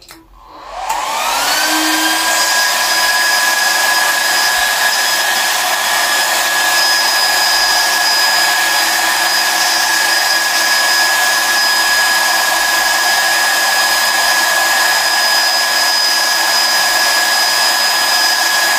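Small electric cooling fans of a GX-E-CS2 portable HPA compressor and its 12 V power supply spinning up as power is connected, rising in pitch for about a second and then running with a steady whine and rush of air.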